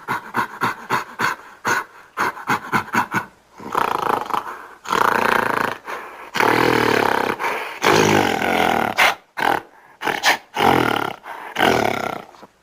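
A large animal's calls: first a rapid run of short grunts, about four a second, then a series of longer, loud, rough calls of a second or so each, with short gaps between them.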